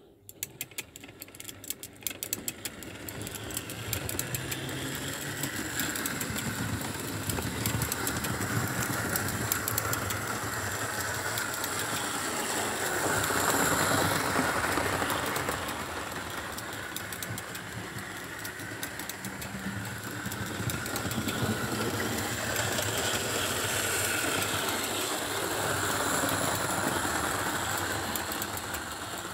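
Model railway train, a 4-6-2 locomotive hauling Hornby coaches, setting off with a quick run of clicks and then running steadily round the track: a rumbling hum of motor and wheels on rail. It swells as the train passes close, about halfway and again near the end.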